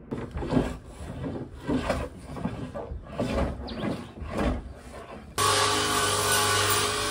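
A hand tool worked in repeated scraping strokes across a wooden board, about a dozen strokes. About five seconds in, a table saw takes over, running steadily as it rips through thick laminated pine boards.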